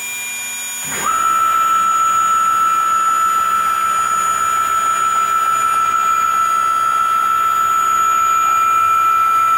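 A 1.5 kW VFD-driven CNC router spindle spins up about a second in: a quick rising whine that settles into a loud, steady high-pitched whine as the spindle holds speed.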